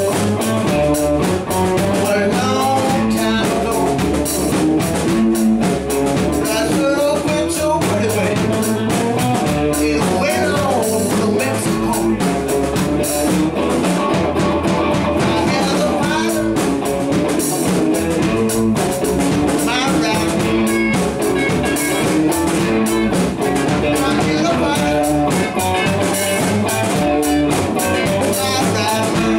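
Live electric blues band playing: electric guitars over a drum kit, with lead guitar lines that bend in pitch.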